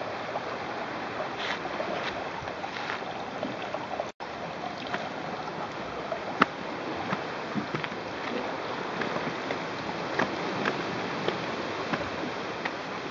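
Steady wash of water, sea waves on shore rocks and a small rocky stream, with scattered clicks of footsteps on a stony path. The sound cuts out for an instant about four seconds in.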